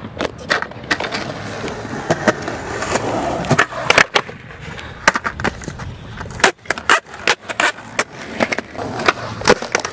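Skateboard wheels rolling on concrete, broken by sharp clacks of the board popping off its nose, flipping and slapping back down. A loud pop comes about four seconds in, and a cluster of clacks comes near the middle.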